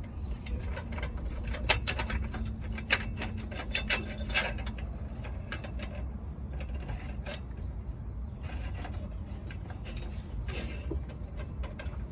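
Scattered sharp metallic clinks and knocks of tools and exhaust parts being handled while an exhaust is fitted, most of them in the first five seconds, over a steady low rumble.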